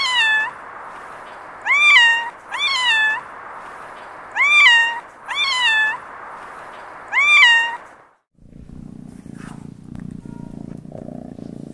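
Domestic cat meowing six times, each call short and rising then falling in pitch, over a steady hiss. About eight seconds in, this gives way to a cat purring, a low steady rumble.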